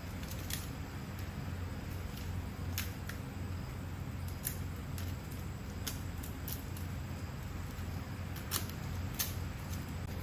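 Scattered light clicks and taps, about ten over several seconds, over a steady low hum.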